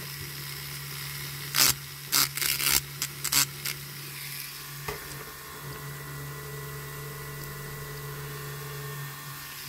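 Small handheld rotary tool running steadily at its lowest speed, grinding down the end of a diecast toy car's axle, with several short scratchy bursts of grinding in the first few seconds.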